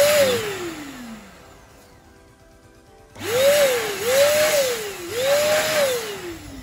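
CompuCleaner Original corded electric duster blowing air into a PC case: the motor whines up and spins down in one burst, then after a pause comes three quick bursts in a row, each a rising whine over rushing air, the last winding down slowly.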